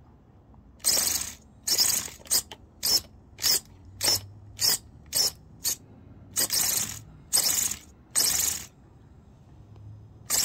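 Reefs Raw 500 steering servo on an RC rock crawler, running on 7.4 volts, snapping the front wheels from lock to lock in quick strokes. About a dozen strokes come in a row: two longer ones, a fast run of short ones, then three longer ones. One more stroke comes right at the end.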